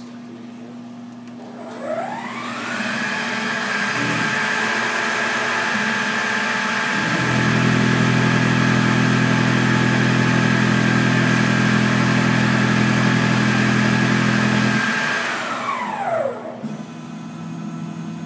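Emco PC Mill 50 bench-top CNC mill running a program: the spindle's whine rises in pitch as it spins up about two seconds in, holds steady, then falls away as it spins down near the end. In the middle a deeper, louder hum joins for about eight seconds.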